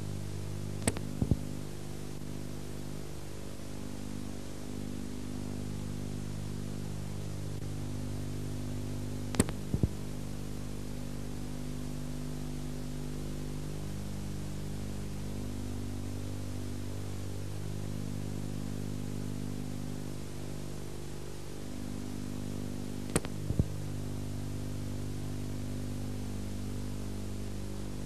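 Steady electrical hum with hiss on an old analogue video soundtrack. Three brief clusters of sharp clicks break it: about a second in, about ten seconds in, and a few seconds after the midpoint.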